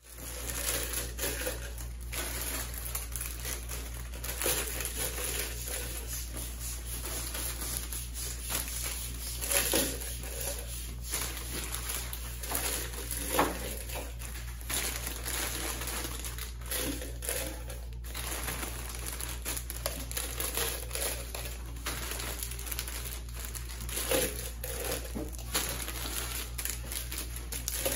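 Plastic bag and sweet wrappers crinkling and rustling as wrapped sweets are handled and dropped into tin cans, with irregular small clicks and taps, over a steady low hum.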